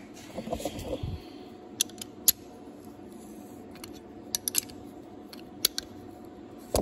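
Metal hand tools being picked up and handled on a workbench: a few light, irregularly spaced clicks and clinks, with soft rustling in the first second, over a faint steady hum.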